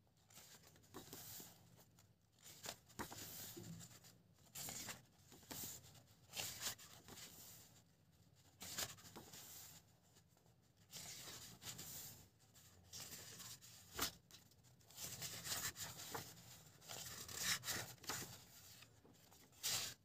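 Paper pages of a thick illustration book being turned one after another: a run of short papery swishes and rustles every second or two, with a sharper flap just before the end as the book is closed.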